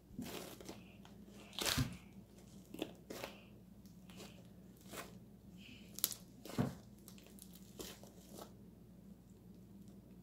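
Slime being handled and worked by hand: faint, scattered crackles and clicks, the sharpest a few near two seconds in and around six seconds.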